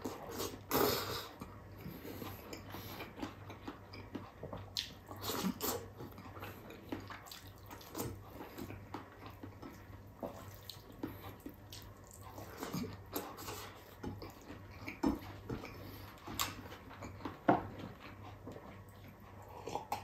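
Wet mouth sounds of a person eating rice and soupy sinigang with pork by hand: irregular chewing, lip smacks and small clicks.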